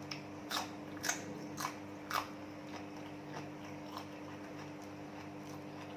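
A person chewing crunchy food close to the microphone: four crisp crunches about half a second apart, then softer chewing.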